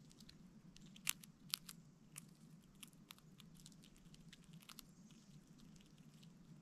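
Red squirrel cracking and chewing sunflower seeds close to the microphone: a run of small crisp cracks, the two sharpest about a second and a second and a half in, thinning out after about five seconds.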